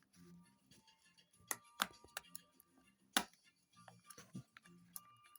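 Small sharp clicks and light taps of a smartphone's motherboard and internal parts being handled and seated into its housing, the loudest click about three seconds in.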